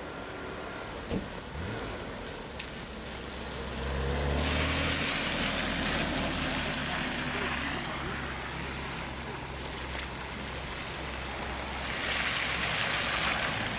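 A BMW Z3 roadster drives past on a soaked road with a low engine hum, its tyres hissing through the standing water. Near the end a second BMW, an E46 3 Series convertible, passes with another swell of tyre hiss on the wet surface.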